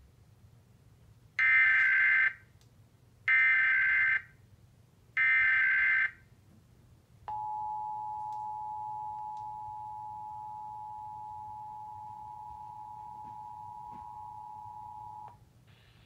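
Emergency Alert System Required Monthly Test tones through a television speaker: three roughly one-second bursts of SAME digital header data tones, then the steady two-tone attention signal for about eight seconds before it cuts off. The header bursts carry the coded alert; the attention signal marks the start of the alert before the spoken message.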